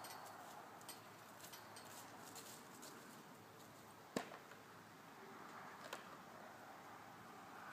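Near silence: faint outdoor background hiss, broken by one sharp click a little after four seconds in and a softer click near six seconds.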